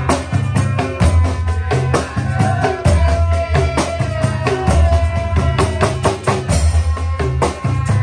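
Indonesian patrol (sahur) music: a loud steady beat of deep bass drum hits about twice a second, with sharp clicking percussion and a melody line over it.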